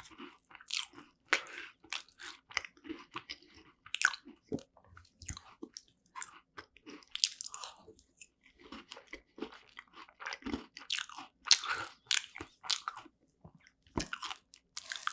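Close-miked chewing and crunching of a strawberry rare cheese tart with a crumbly pastry shell: many short, irregular crackles and wet mouth sounds between forkfuls.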